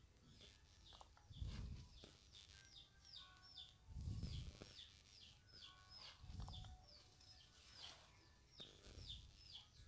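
A bird chirping over and over in the background: short, high, falling notes, two or three a second. Dull low thumps come about every two and a half seconds.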